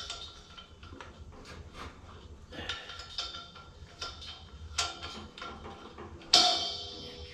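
Clicks and light metallic clinks from handling a propane heater and its cylinder, then a loud metal clank about six seconds in that rings out briefly.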